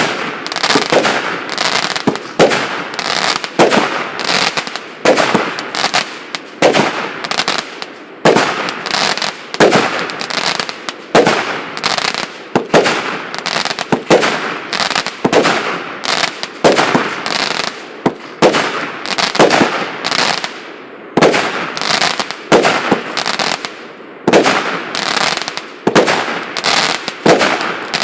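A 148-shot, 0.8-inch consumer firework cake firing shot after shot: sharp bangs roughly one to two a second, some with a trailing crackle.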